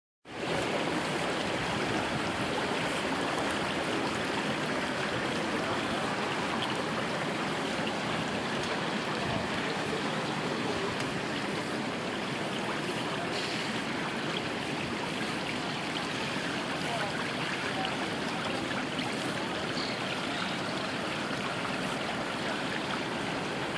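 Steady rush and splashing of water in hatchery raceway tanks, with juvenile coho salmon churning the surface as they feed on pellets.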